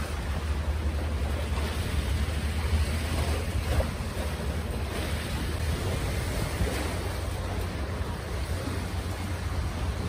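Wind blowing over the microphone: a steady low rumble with a rushing hiss above it.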